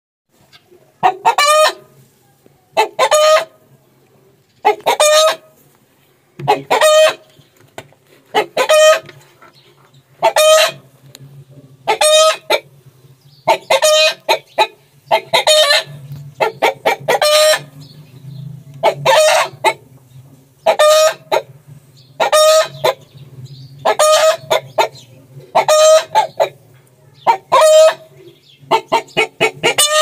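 Chickens calling: a short pitched call repeated very regularly, about every two seconds, turning into quicker runs of clucks near the end. A faint low hum runs under the calls from about halfway.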